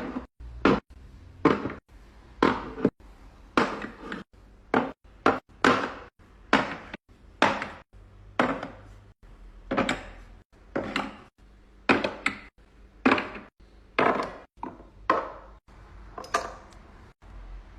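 A steady series of sharp knocks and clacks, about one and a half a second, of containers and food items being set down and handled in a fridge.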